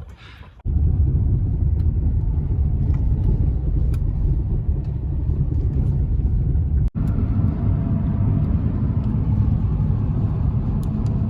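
Lifted Toyota Camry driving over a rough dirt road: a steady low rumble of tyres and engine, with a brief dropout about seven seconds in.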